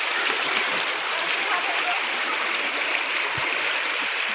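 Fast-flowing floodwater rushing along a village lane, a steady, even rushing hiss.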